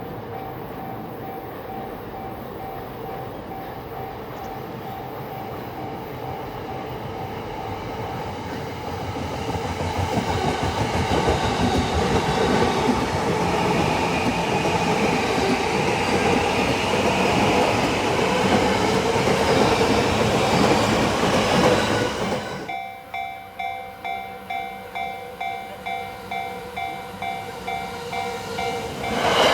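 Japanese level-crossing warning bell ringing at about two strokes a second while a JR Yamanote Line electric train passes over the crossing. The train's rumble builds, then stops sharply about three-quarters of the way through, leaving the bell ringing alone. Near the end the rumble starts to rise again.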